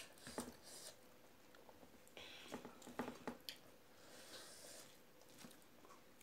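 Faint eating sounds: fingers squishing and mixing rice on a steel plate, with soft chewing and mouth smacks heard as scattered small clicks, most of them around the middle.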